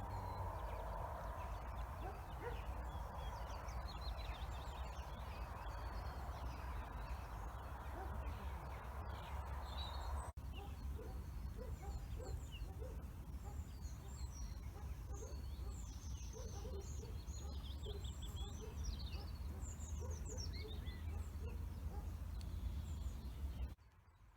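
Wild birds singing and calling, many short high chirps and trills with some lower calls, over a steady low rumble. The sound breaks off sharply about ten seconds in and drops away just before the end.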